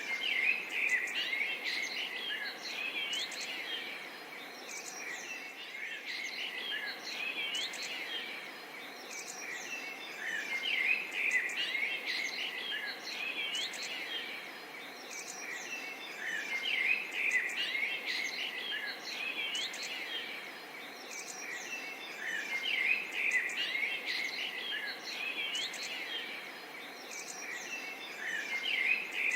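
A chorus of many small birds chirping and whistling, the calls bunching into busier spells every few seconds, over a steady faint hiss.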